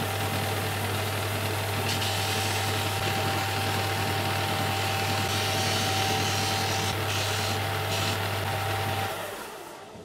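Scheppach BTS 800 belt and disc sander running with a steady hum and whine, rasping harder at times as a wooden board's edge is pressed against the sanding disc. About nine seconds in the motor is switched off and the sound dies away as the disc runs down.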